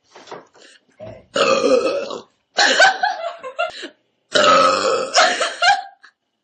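A person burping loudly three times in a row, each burp lasting about a second or longer.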